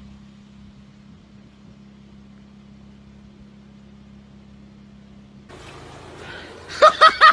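Steady low hum of an idling vehicle engine. About five and a half seconds in it switches suddenly to a rushing noise, and near the end loud bursts of laughter break in.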